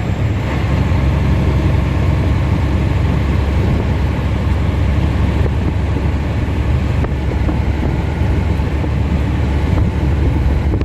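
Dump truck's engine running steadily as the truck drives, a deep continuous drone.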